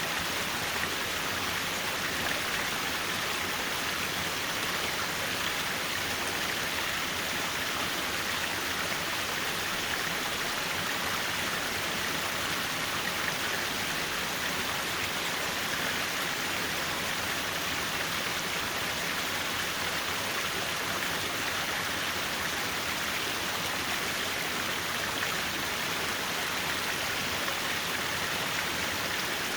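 Mountain stream rushing over rocks in a steady, even wash of water noise.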